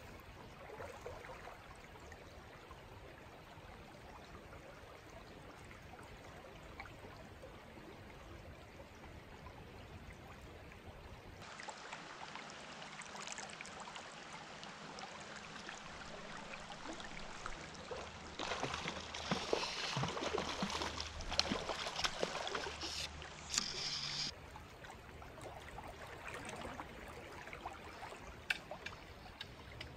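Steady rush of a shallow creek's current. About two-thirds of the way through, several seconds of louder, choppy splashing as a hooked rainbow trout thrashes at the surface close to the wading angler and the landing net.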